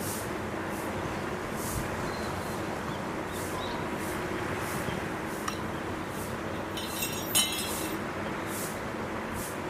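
Steady background noise with a brief ringing clink and rattle about seven seconds in.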